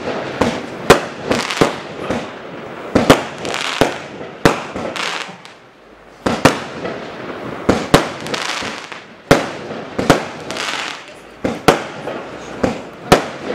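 Ardi Mad Fire Box 100-shot, 30 mm-calibre fireworks cake firing: a string of sharp bangs roughly one a second, each followed by a fading rush of noise, with a short lull about six seconds in.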